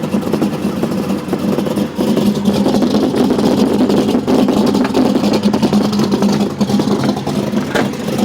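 Stroked GM LS2 V8 engine running with a misfire. It runs steadily, with a brief dip just before two seconds in.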